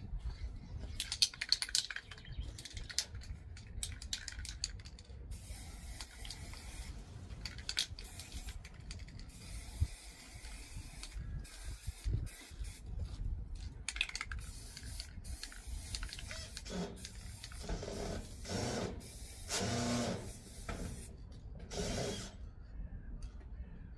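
Aerosol spray-paint can hissing in bursts as gold paint is sprayed on. A run of sharp clicks comes in the first couple of seconds, and a few short pitched sounds come near the end.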